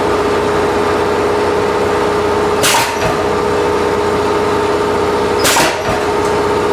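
Steady mechanical hum of a pneumatic power hammer's air compressor running, with two short sharp bursts about three seconds apart.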